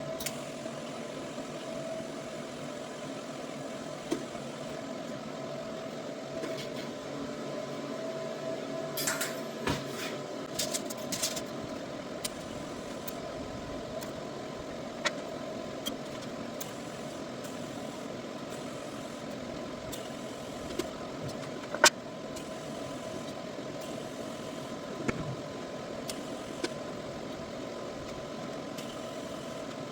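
TIG welding arc running with a steady hum and hiss, broken by scattered sharp clicks and taps, the loudest about two-thirds of the way through.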